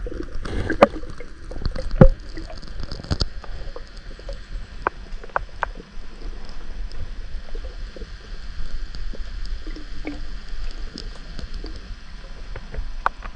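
Muffled underwater sound from a submerged camera in murky lake water: a steady low rush of water with scattered sharp clicks and small knocks, the loudest near the start.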